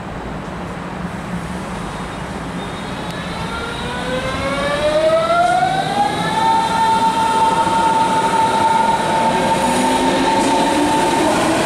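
Berlin S-Bahn electric train pulling away, its traction motors giving a whine that climbs in pitch for about three seconds and then holds steady, over the rumble of the wheels on the track. A second, lower whine begins rising near the end as the train keeps accelerating.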